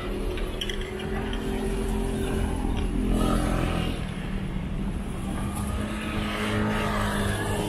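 Street traffic: motor vehicles running and passing close by, a steady engine hum that swells about three seconds in and again near the end.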